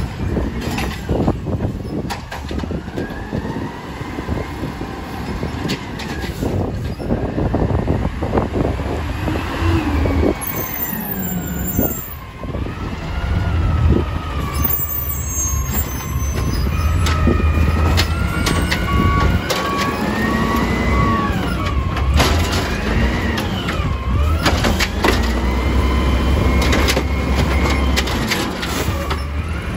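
Automated side-loader garbage truck's diesel engine revving up and down as it drives the hydraulic arm, with a whine that rises and falls again and again. Knocks and bangs of plastic wheelie bins being lifted, shaken out and set down are heard at several points.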